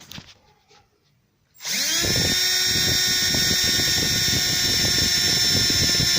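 Electric drill spinning up about one and a half seconds in and then running steadily, a step bit cutting with a rough, rapid chatter as it enlarges a mounting hole in the pickup's sheet metal.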